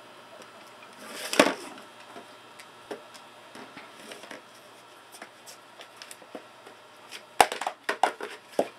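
An empty cylindrical container with a blue lid knocking and scraping on a wooden floor as a cat paws and pushes it. A scraping clatter comes about a second and a half in, then scattered light taps, then a quick run of sharp knocks near the end.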